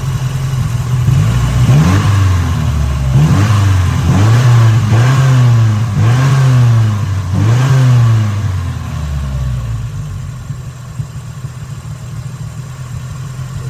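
Nissan KA24E 2.4-litre four-cylinder engine revved up and down about five or six times, then dropping back to a rough idle. The engine is misfiring after its idle screw was turned down.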